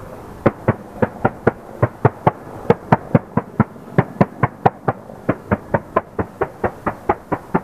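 Mi-24P helicopter's main rotor blade slap: a steady run of sharp thumps, about four or five a second, starting about half a second in, over a low rumble of the engines.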